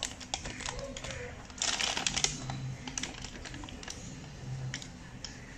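Irregular clicks and crinkles of a plastic flour packet and the plastic jaws of a handheld mini heat sealer as it is clamped and pressed along the packet's edge, with a denser run of crackling about two seconds in.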